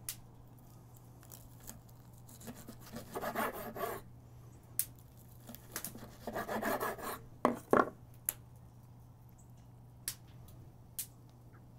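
Chef's knife sawing through a rack of smoked baby back ribs on a wooden cutting board: a rasping scrape in two stretches, with several sharp knocks of the blade against the board.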